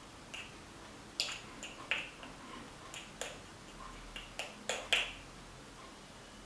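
Plastic coffee spoon clicking and tapping against an espresso portafilter while ground coffee is added, about ten light, irregular taps over five seconds.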